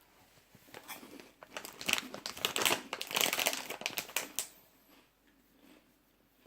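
Plastic snack bag crinkling and crackling as it is handled, for about four seconds, loudest in the middle, then stopping.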